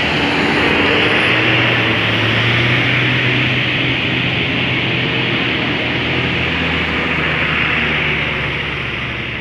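Bus engine running steadily with heavy road and wind noise, loudest in the first couple of seconds, then slowly easing.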